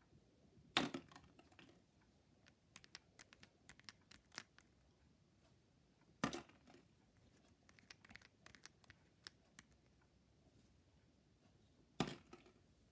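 Plastic caps being pulled off the nozzles of Ambi Pur 3volution refill bottles: a loud plastic snap about a second in and another just past six seconds, with light plastic clicks and handling in between. A third sharp click comes near the end.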